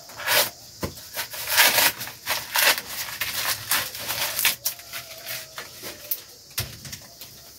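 Dry corn husks crackling and tearing as an ear of dried corn is husked by hand, in a run of irregular rustles and sharp crackles.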